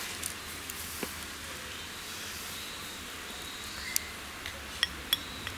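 A few sharp clinks as a glass jar is picked up and handled, the loudest about four seconds in, over a steady background hiss with faint high chirps.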